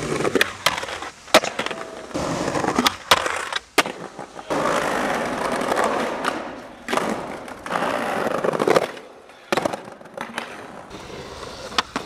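Skateboard wheels rolling over concrete and paving, broken by sharp cracks of the board popping and landing, over several tricks in a row.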